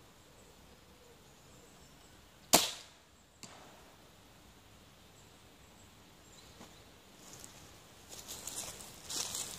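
A 185 lb Guillotine X crossbow fires once with a sharp, loud crack that dies away quickly. Under a second later comes a faint knock of the bolt striking the target 70 m downrange. Near the end, rustling starts and grows louder, like dry leaves being trampled or handled.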